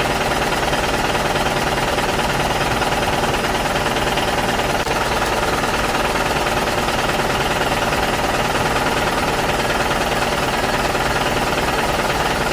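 A motor running steadily with a fast, even rattle, unchanging throughout.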